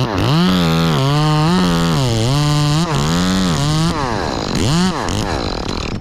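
Stihl MS 261 two-stroke chainsaw cutting through a cedar trunk under full throttle, its engine note dipping and recovering over and over as the chain loads up in the wood. Near the end it is let off, gives one short rev, and drops back.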